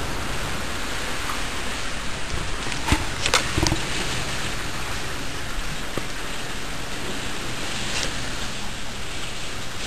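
Heavy rain pouring steadily in a storm, with a few sharp knocks about three seconds in.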